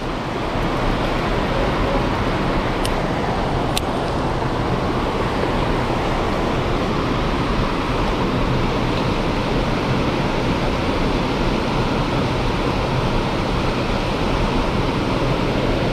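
Steady rushing of a shallow stream rapid, water running fast over rocks.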